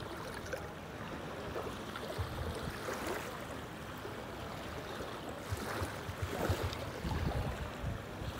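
Water lapping and splashing, with wind rumbling on the microphone.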